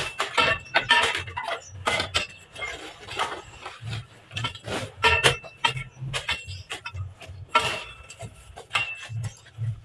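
Long steel digging bar jabbed repeatedly into gravelly ground and concrete, giving sharp metallic clinks with a short ring, about two a second, mixed with duller thuds.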